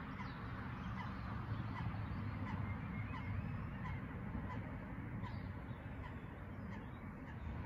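Geese honking now and then, short calls scattered through, over a steady low rumble.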